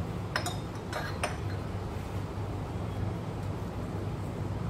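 A metal spoon clinking a few times against a stainless steel bowl and spice containers as ground spices are spooned out, over a steady low hum.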